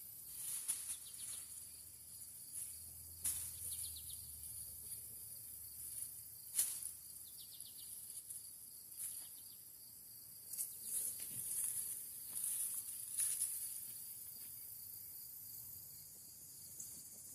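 A steady, high-pitched chorus of insects trilling, with scattered rustles and snaps from plants being handled and picked, the sharpest about a third of the way in and a cluster of them past the middle.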